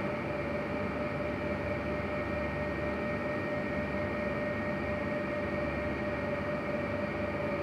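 Steady background hum and noise with a constant mid-pitched whine, no distinct knocks or beeps.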